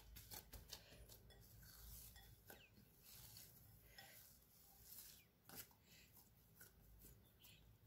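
Near silence, with faint soft squelches and scattered light ticks from a hand pressing down risen yeast dough in a glass bowl.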